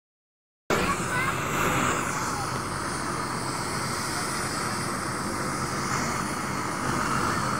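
Helicopter running on the ground with its rotor turning: a steady engine whine and rumble that starts abruptly just under a second in, with the chatter of a large crowd beneath it.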